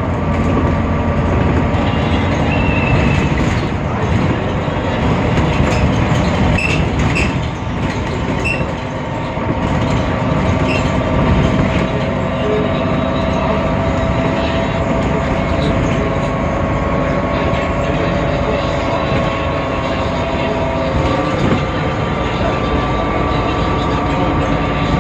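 Temsa Avenue LF city bus with a DAF PR 228 diesel engine and ZF Ecolife automatic gearbox running under way, a steady drone with sustained whining tones over it, described as a strange sound, different from normal for this bus. About 21 seconds in the whine shifts to a higher pitch.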